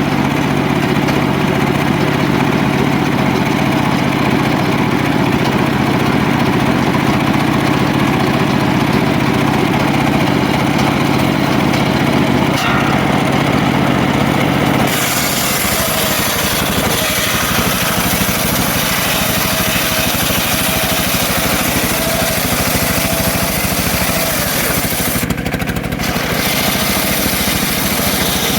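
A homemade engine-driven circular sawmill running steadily with a low engine hum. About halfway through the hum drops back and a harsher hiss takes over as the blade rips through the mahogany log. The hiss briefly eases near the end.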